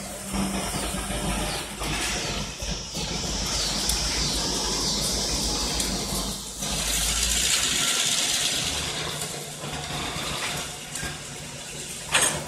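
Freight train of tank cars rolling along the rails: a steady low rumble with a high hiss from the wheels and track. The rumble drops away about seven and a half seconds in.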